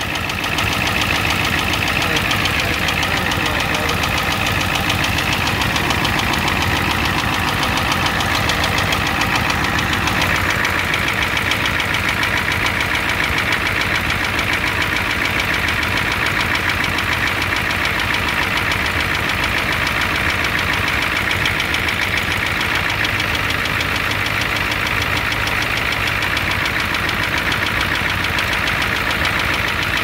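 1988 Ford F-250's 7.3 L IDI V8 diesel idling with a steady, rapid knocking clatter, heard close up in the engine bay. This is the engine knock the owner is chasing, along with a leaking high-pressure fuel line.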